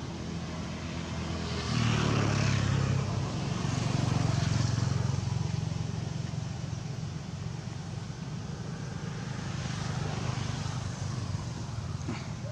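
Motor vehicle engine hum passing close by, getting louder about two seconds in and easing off after about five seconds.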